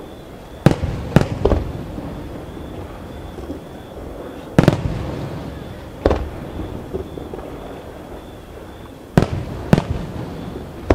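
Aerial fireworks going off in sharp booms: three in quick succession about a second in, one near the middle, another about six seconds in, and two more near the end, each trailing off briefly.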